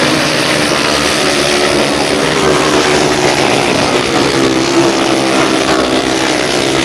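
Several grasstrack racing motorcycles running hard around the track, a dense mix of engine notes with pitches shifting up and down.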